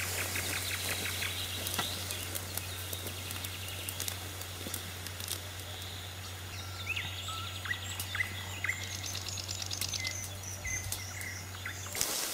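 Small birds chirping and trilling, with several quick rising chirps in the middle, over a steady low hum and scattered faint ticks.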